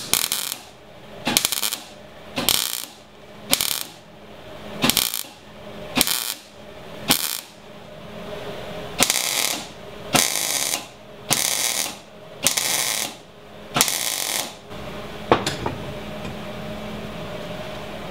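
Arc welder laying weld in short bursts about a second apart, crackling with each strike, to fill a hole in a differential cover. The later bursts run longer. The welding stops a few seconds before the end, leaving a low hum.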